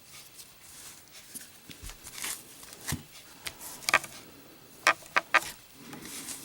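Zippo lighter with a steel insert clicking and clinking as it is handled and readied, scattered sharp metallic clicks with three quick ones close together near the end.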